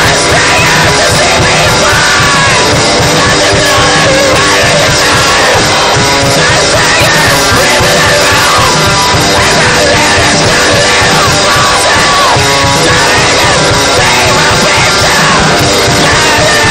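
Improvised lo-fi metal: drums, guitar and yelled vocals, all distorted by recording with the input maxed out rather than by effects.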